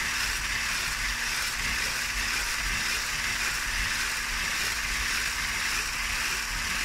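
Electric whisk running steadily at speed with a faint low hum, its beaters whipping a thickening instant-coffee cream in a glass bowl.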